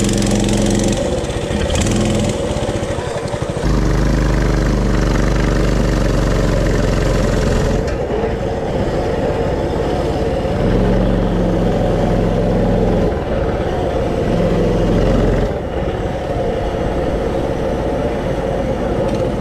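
Small off-road mini bike engine running under way on a dirt trail, its revs stepping up and down several times as the throttle is opened and eased off.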